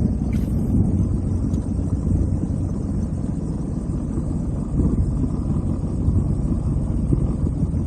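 Sea-Doo jet ski engine idling with a steady low rumble.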